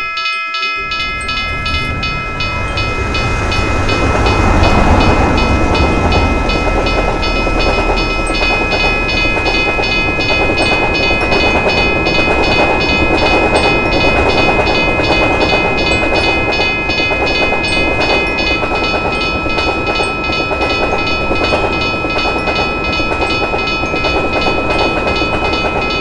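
Railroad crossing warning bell ringing in a fast, steady rhythm while a train rumbles past, its noise swelling a few seconds in and then running on.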